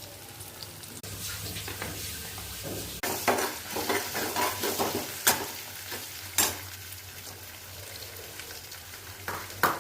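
Ginger, black pepper and cloves frying in hot ghee in a kadhai, sizzling steadily. From about three seconds in, a spoon stirs and scrapes in the pan with a run of crackles and two sharp clinks.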